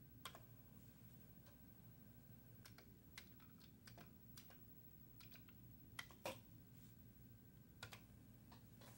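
Commodore 64 keyboard keys clicking as a command is typed: about a dozen faint, irregularly spaced keystrokes over a low steady hum.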